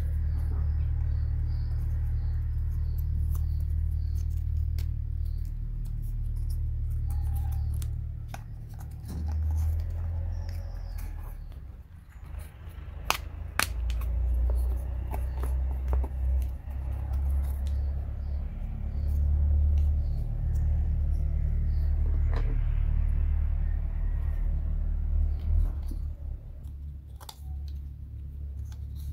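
Small clicks and taps of thin laser-cut plywood puzzle pieces being handled and fitted, over a steady low rumble. Two sharper snaps come about halfway through.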